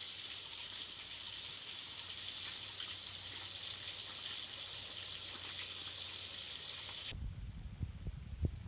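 Outdoor ambience: a steady high-pitched hiss with a short, higher note repeating about every second and a half. About seven seconds in it cuts off abruptly to a low rumble with a few thumps.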